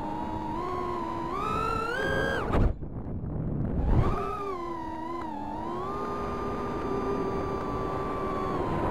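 Micro quadcopter's Emax 1106 brushless motors with three-blade props whining, the pitch rising and falling with throttle. About two and a half seconds in the whine climbs and then cuts out for about a second with a thump, punches back in with another thump near four seconds, and then holds a steady whine.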